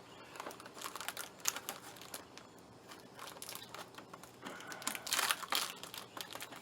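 Plastic crinkling, rattling and clicking from the headlight assembly's parts being handled and pulled apart, getting busier about five seconds in.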